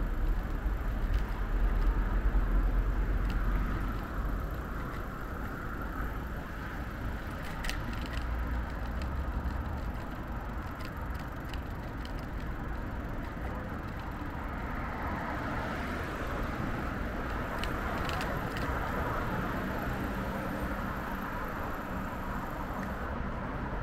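City street traffic noise: a steady rumble of cars going by, loudest in the first few seconds, with a few faint clicks.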